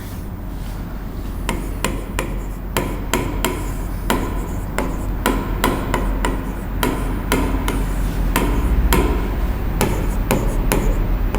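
A run of sharp knocks, irregular at about two to three a second, starting about a second and a half in, over a steady low mains hum.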